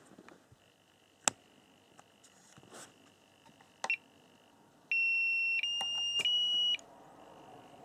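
SkyRC T100 battery charger's beeper sounding three short beeps back to back, each a step higher in pitch, as it runs its battery check and starts a NiMH charge at 1.8 A. Two sharp clicks come a few seconds before the beeps.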